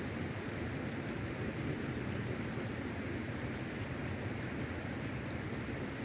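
Steady outdoor background noise, a rushing sound with a constant high hiss over it and no distinct events.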